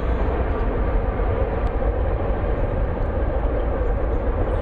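Wind buffeting the microphone outdoors: a steady, uneven low rumble with a faint even hum underneath.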